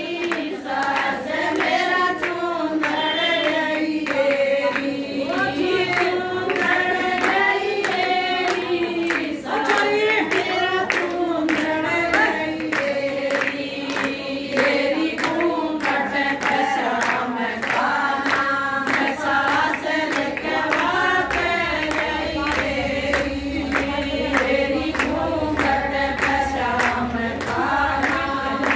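A group of women singing a Hindu devotional bhajan together, with steady hand-clapping in time.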